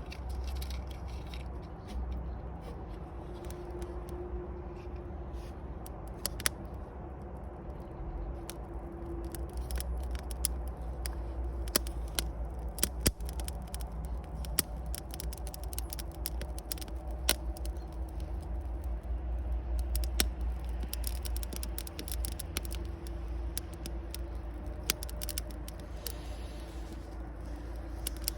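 Wood bonfire burning, crackling with irregular sharp pops over a steady low rumble.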